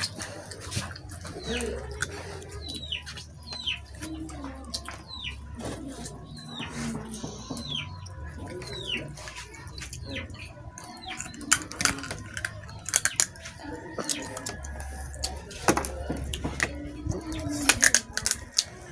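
Sharp cracks and crunches of boiled crab shells being broken apart by hand and chewed, loudest in the second half. Behind them a bird repeats a short falling chirp about once a second during the first half.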